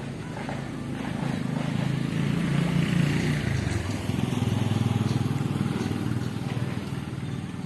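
A small child snoring loudly in sleep: a low, buzzing snore that swells to a peak about three seconds in, dips, then swells again and fades.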